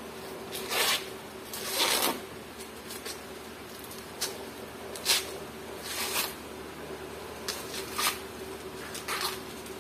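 Husks being torn off an ear of fresh corn by hand: about six short rustling rips, with pauses between them, as the leaves and silk are pulled away.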